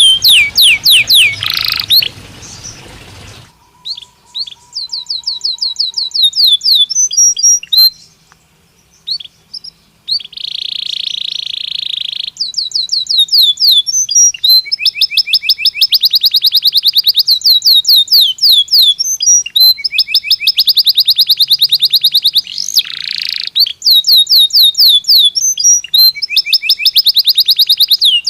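Belgian canary singing: long, fast trills of rapidly repeated falling notes, with a harsh buzzy phrase about ten seconds in after a short pause.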